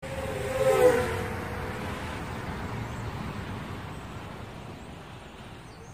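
Intro sound effect of something rushing past: a loud whoosh peaking about a second in, with a sharply falling pitch as it passes, then a long fading rush of noise.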